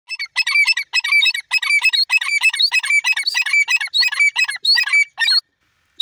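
Grey francolin calling: a fast, continuous run of repeated high notes that stops abruptly near the end.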